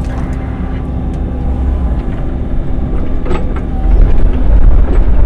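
Excavator engine running steadily with a low rumble, growing louder about four seconds in as the machine works.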